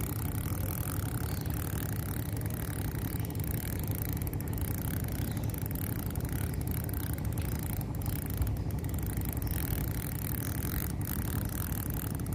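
Steady low drone of an idling engine.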